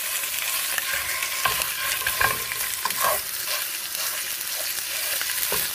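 Ground chicken sausage sizzling steadily in olive oil in a skillet, while a plastic spatula scrapes and taps the pan several times as the meat is broken up.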